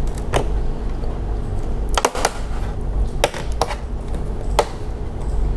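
Thin flat-head screwdriver prying at the plastic back cover of an all-in-one PC, giving a handful of sharp plastic clicks and snaps spread over a few seconds as the cover's clips are worked loose.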